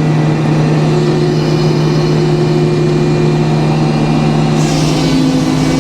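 Sawmill engine running steadily. About four and a half seconds in, a higher hiss joins and one part of the hum drops a little in pitch.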